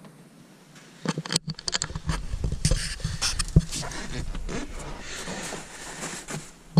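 Irregular knocks, clicks and rustling from a camera being handled and carried in close to the engine, with a low rumble from about two seconds in.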